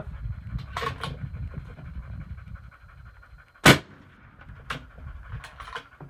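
A single suppressed rifle shot about two-thirds of the way through, sharp and brief: a 6.5 Creedmoor fired through a 5-inch Thunder Beast Ultra suppressor, which the meter reads at about 134 dB at the shooter's ear. A few fainter clicks come before and after the shot.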